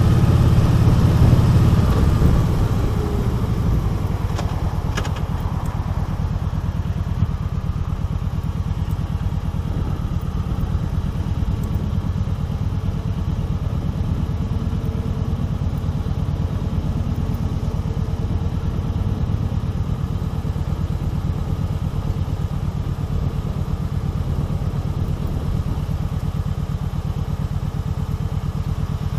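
Kawasaki Vulcan 1700 Voyager's V-twin engine easing off as the bike rolls to a stop in the first couple of seconds, then idling steadily.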